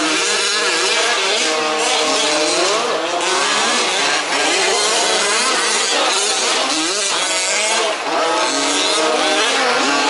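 Several 1/5-scale petrol RC off-road trucks racing, their small two-stroke engines revving up and down over one another without a break.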